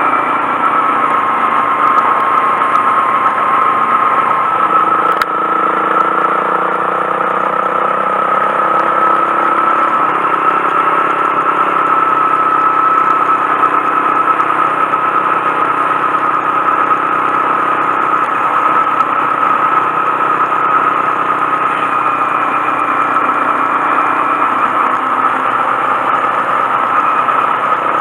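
Honda Monkey 125's single-cylinder engine running at a fairly steady speed on the move.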